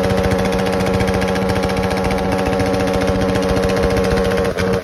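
Yamaha YFZ450R race quad's single-cylinder four-stroke engine idling steadily.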